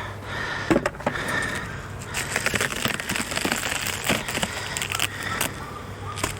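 Hive tool prying a propolis-glued frame loose in a beehive box, making a run of crackles and snaps as the propolis and wax give way.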